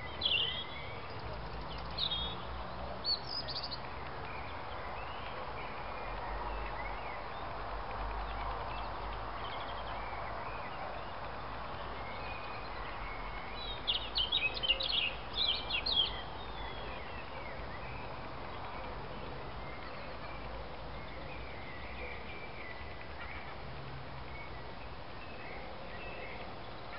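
Steady background hum of outdoor ambience with short, high chirping animal calls: a few near the start and a quick run of them about halfway through.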